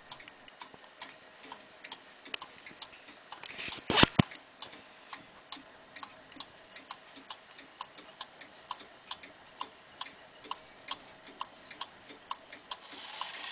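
Pendulum wall clock ticking steadily, a little over two ticks a second, with a louder knock about four seconds in. A soft rushing noise builds near the end.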